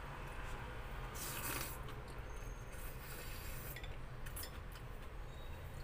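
Someone eating: a brief scrape about a second in and a few light clicks and clinks of utensils or dishes around the middle, over a steady low hum.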